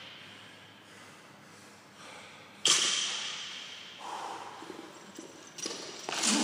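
A sharp metallic barbell clang about two and a half seconds in, ringing away over a second or so. Near the end comes a short grunt of effort as the lifter jumps the bar up.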